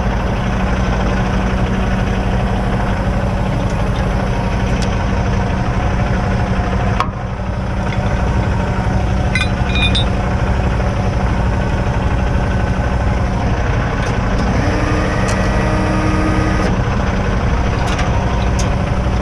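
Heavy truck diesel engine idling steadily. A higher tone rises and holds for about two seconds a little past the middle.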